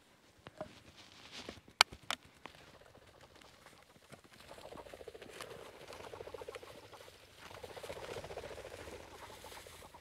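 Footsteps swishing through dry prairie grass, a rhythmic rustling patter that builds about halfway through. It is preceded about two seconds in by two sharp clicks, close together.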